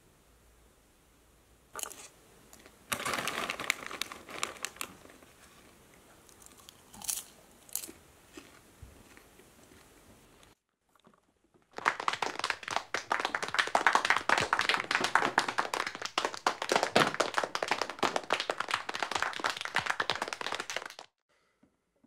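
Small audience applauding, a dense patter of claps that starts as the comedian comes through the curtain and cuts off suddenly. Fainter, sparser crackling comes before it.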